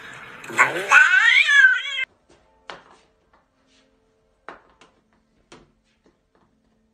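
A cat yowling: one long, wavering, drawn-out call that rises in pitch and cuts off about two seconds in. A few faint knocks follow.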